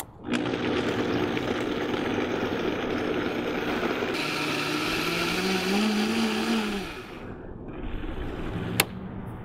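Vitamix blender motor running at speed, blending fruit and juice into soup; its pitch rises around the middle and then it winds down about seven seconds in. A single sharp click near the end.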